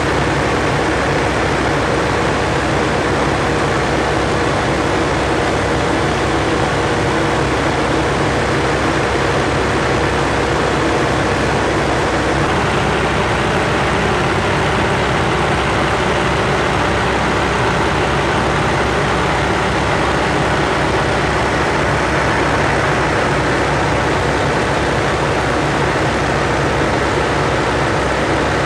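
1946 Aeronca Champ's engine and propeller running steadily in flight, heard from inside the cabin.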